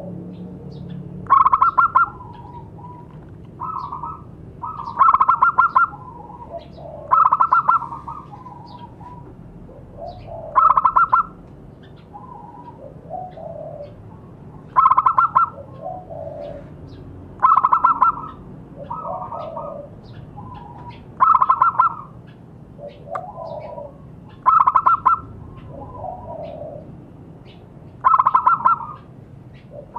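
Zebra dove (perkutut) cooing its rapid, stuttering song, nine loud phrases spaced three to four seconds apart, with softer, lower cooing notes in between.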